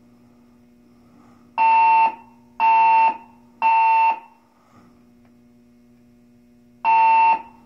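Building fire alarm sounding its evacuation tone: three loud, buzzy half-second tones about a second apart, a pause, then the next group of three starting near the end. This three-pulse pattern is the standard temporal-three fire evacuation signal.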